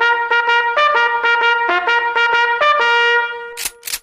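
Trumpet call: a quick run of short notes, many of them repeated, that fades out about three and a half seconds in. Two short sharp noises follow just before the end.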